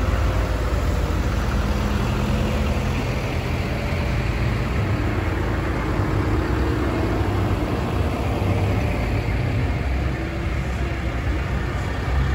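Diesel engines of farm tractors passing slowly one after another, a steady low rumble.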